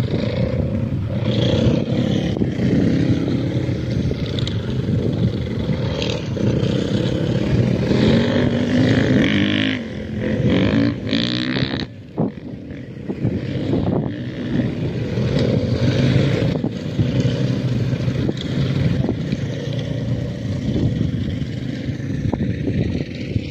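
Motor vehicle engines, among them dirt bikes, running steadily with revs that rise and fall several times.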